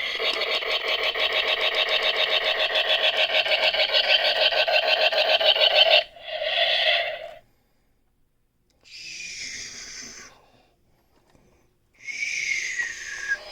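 Electronic sound effects from a Star Wars Micro Galaxy Squadron Millennium Falcon toy's small speaker. A rapidly pulsing engine-like effect builds for about six seconds and cuts off suddenly. It is followed by a short burst, a hiss, and a falling whine near the end.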